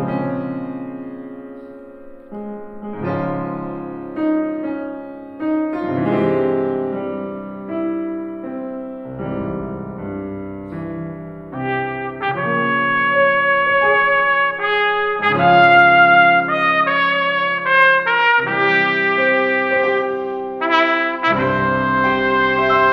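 Trumpet and grand piano playing a classical sonata together: the trumpet holds sustained notes over piano chords, climbing higher and louder a little past the middle.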